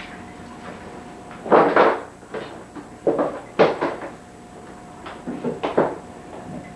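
A series of irregular knocks and bangs, about seven in all and the loudest in the first half, over a faint steady hum.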